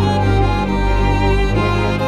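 Instrumental background music with long held notes over a steady low bass.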